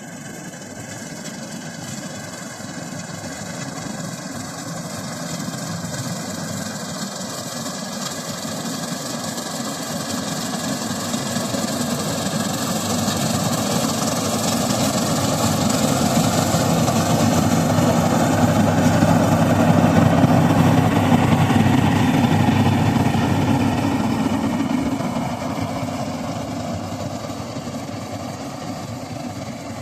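Preet 849 combine harvester running, a steady diesel engine and machinery drone that grows louder to a peak about two-thirds of the way through and then fades.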